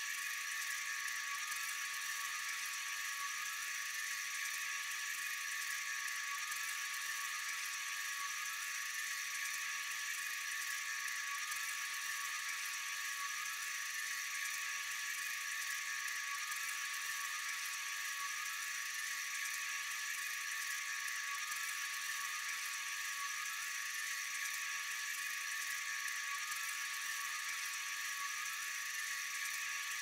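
Steady chorus of night insects, a high-pitched shrill hiss with a faint chirping repeating at an even pace underneath.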